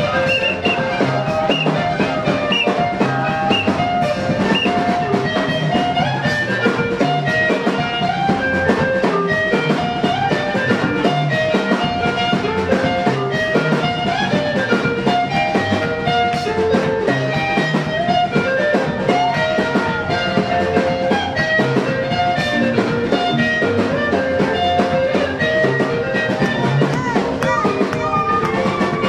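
Gospel dance music with a steady beat, playing without a break.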